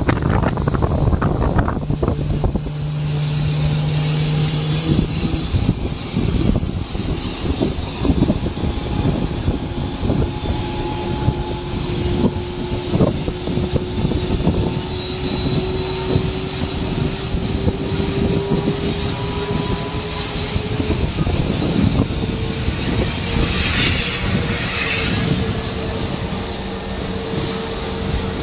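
Aircraft engines running, with a steady rush. Through the middle a whine climbs slowly in pitch, and near the end a higher tone holds steady.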